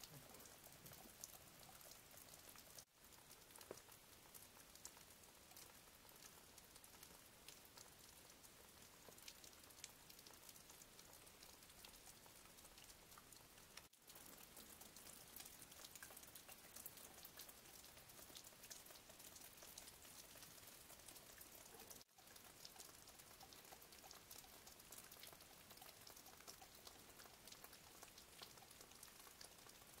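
Faint, steady pattering of water dripping from the icicles of a frozen waterfall, cut off for an instant three times.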